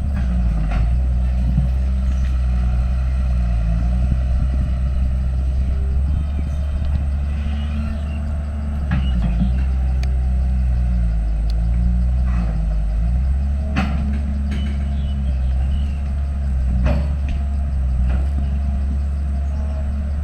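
Diesel engine of a heavy earthmoving machine running under load, its pitch rising and falling as it works, with a few sharp clanks.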